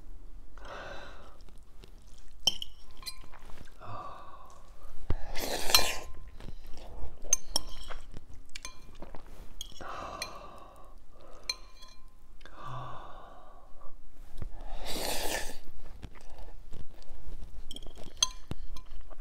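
A man chewing a mouthful of spicy instant ramen noodles, a metal fork clinking now and then against a glass bowl. Two loud, breathy puffs come about a third of the way in and again near three quarters.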